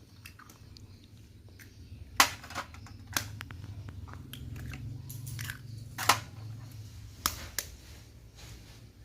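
Kitchen handling sounds while getting ready to beat eggs for a cake: several sharp knocks and clicks of utensils and bowls, the loudest about two seconds in, over a low steady hum.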